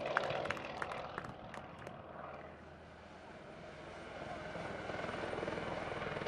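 Scattered hand claps fade out over the first two seconds. From about four seconds in, the rotor and turbine of a Eurocopter EC120 light helicopter grow steadily louder as it flies past.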